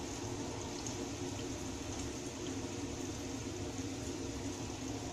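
Ragi unniyappam frying in coconut oil in the wells of an unniyappam pan: a steady bubbling sizzle of hot oil around the fritters.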